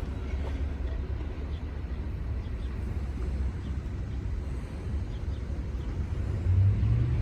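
Long mixed freight train rolling past the crossing: a steady low rumble with faint, scattered clicks from the wheels. The rumble grows somewhat louder near the end.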